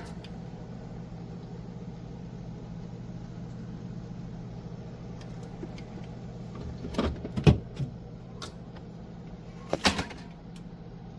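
A steady low hum with a few sharp knocks and clicks of plastic parts being handled, a pair about seven seconds in and another near ten seconds, with fainter ticks in between.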